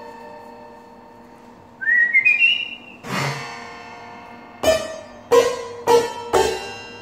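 Harpsichord with two 8ft choirs of plucked strings: a chord rings away, then a short rising whistle is heard for about a second. The harpsichord then strikes a chord and plays a run of sharp plucked notes and chords about every half second near the end.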